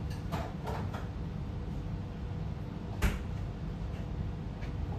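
Low steady room hum with a single sharp knock about three seconds in.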